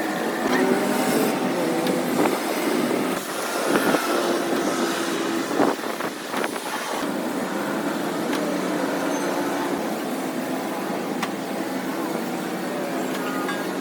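A running engine, a steady hum whose pitch drifts slowly, with a few knocks about four and six seconds in.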